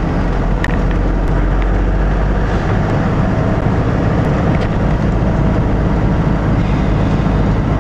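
Car driving along a town street, heard from inside the cabin: a steady rumble of engine and road noise, strongest at the low end, with a few faint ticks.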